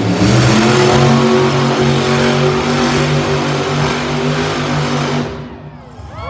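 A loud motor running steadily at one pitch, then dying away and stopping about five seconds in.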